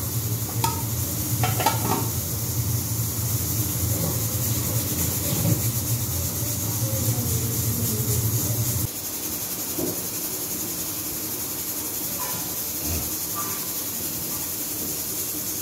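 A steady low mechanical hum with a couple of clinks from a steel pot being set down; the hum cuts off abruptly about nine seconds in, leaving a steady hiss.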